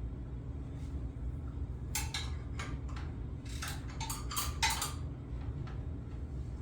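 Light metal clinks and clatters in two short clusters, about two and four seconds in, from the blade bolt, washer and blade being handled and screwed back onto a circular saw's spindle. A steady low hum runs underneath.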